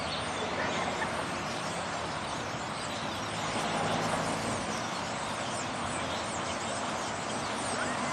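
A very large flock of birds calling all at once, a dense, continuous chatter of many overlapping chirps, with a low steady rumble underneath.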